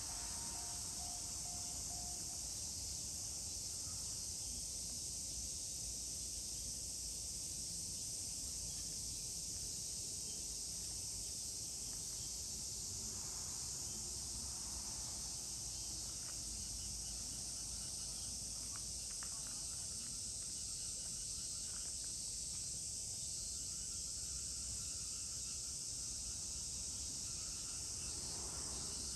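Steady, high-pitched drone of an insect chorus that holds unchanged throughout, over a low background rumble.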